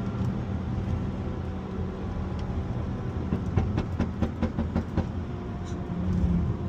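Car engine running steadily at low revs. A run of sharp clicks or pops comes about three to five seconds in.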